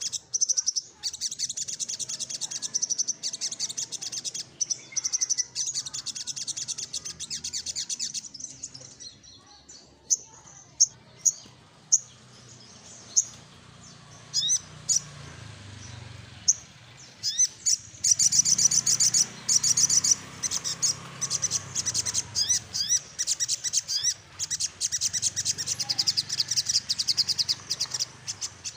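Sunbird (sogok ontong) singing in rapid, high, rattling trills of chirpy notes. For about ten seconds in the middle it breaks into scattered single chirps, then the fast rolling trills resume.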